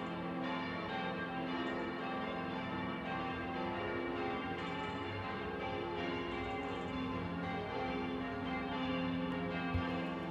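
Background music of sustained, chiming bell-like tones at a steady level.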